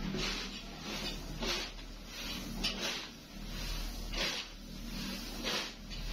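Shredded plastic flakes rattling and sliding as a box is scooped into a pile of them and tipped out, about five swishes roughly a second and a quarter apart, over a low steady hum.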